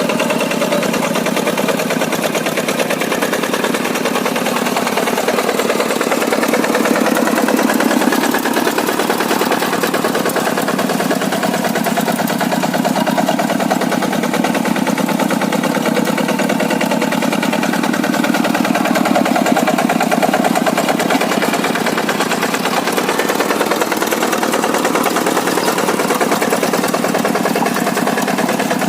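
Quick G100 hand tractor's old-model Kubota single-cylinder diesel engine running steadily with a rapid, even chugging beat while the tractor works hard soil.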